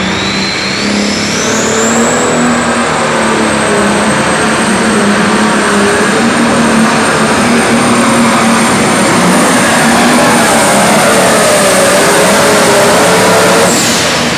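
John Deere Pro Stock diesel pulling tractor running at full throttle while dragging a weight sled. A high turbo whistle climbs over the first two seconds and holds over a steady engine note. Near the end it drops away suddenly as the throttle comes off.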